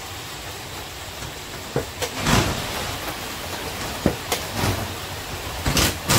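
Cordless drill/driver run in short bursts, driving the screws of a wall-mount bracket into the back of a TV, once about two seconds in and again near the end, with a few sharp metal clicks in between over a steady background hiss.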